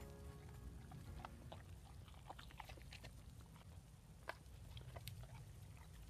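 A boxer dog eating and licking from a metal tin held in a hand: faint chewing with scattered small clicks.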